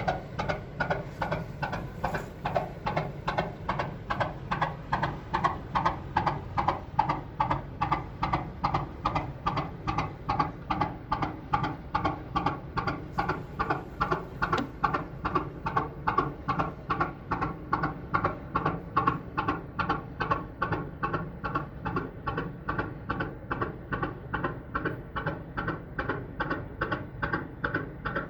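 80 hp Industrie 2VD6 marine diesel from 1954 running steadily at slow speed, a loud, even beat of about three strokes a second.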